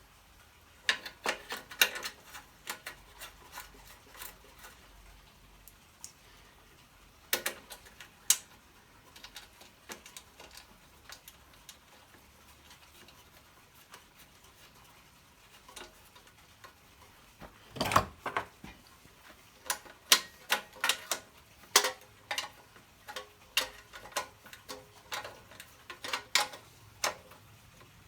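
Hand tools and small metal parts clicking and tapping against the old Honda generator as it is worked on, in irregular clusters: a run about a second in, two sharp taps around seven and eight seconds, then a busier stretch from about eighteen seconds on with the loudest knock at its start.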